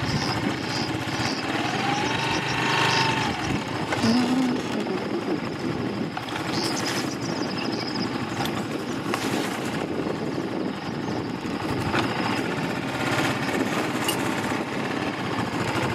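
Motorcycle engine running as the bike is ridden along a rough dirt track, its revs rising and falling a few times in the first seconds.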